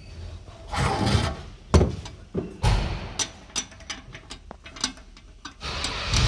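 Metal engine parts being handled and set down: a series of sharp clinks and knocks, some with a brief metallic ring, between bursts of scraping and rustling.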